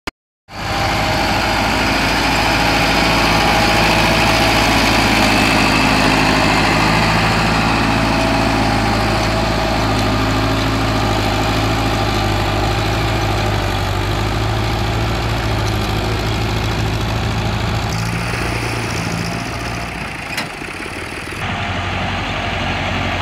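Dewan farm tractor's diesel engine running steadily under load as the tractor drags a rear levelling blade through sandy soil. The engine sound changes abruptly a few times near the end.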